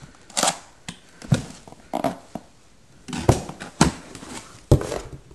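A cardboard box being handled and opened by hand: a series of irregular knocks, taps and scraping rustles of cardboard and packaging.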